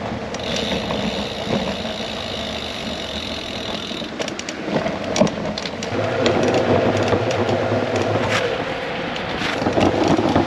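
Steady road and wind noise from riding a folding bicycle, with a steady low hum that joins about six seconds in.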